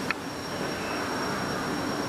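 Steady background hiss of room noise with a faint, high-pitched steady whine, and one brief small click just after the start.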